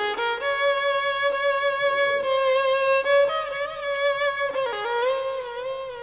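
Background music: a slow melody on a violin-like bowed string instrument, long held notes with vibrato.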